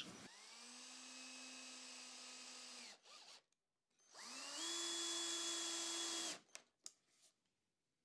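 A cordless drill runs twice in short bursts as holes are pre-drilled and countersunk in MDF for screws. Each run spins up to a steady whine, and the second is higher-pitched and louder. Two light clicks follow near the end.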